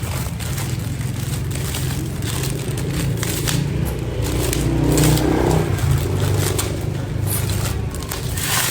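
Motorcycle engine running, its revs rising to a peak about five seconds in and then dropping back, with scattered metallic clicks.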